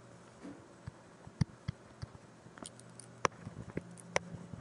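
A handful of light, separate clicks and taps from a stylus writing on a pen tablet, spaced irregularly.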